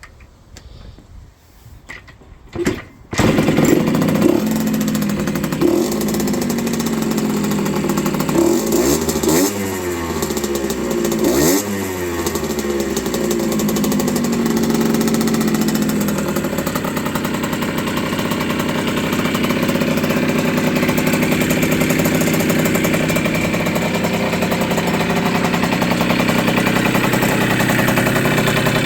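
1980 Yamaha YZ50G's small two-stroke single-cylinder engine starting about three seconds in. It is revved a few times, then settles into a steady run.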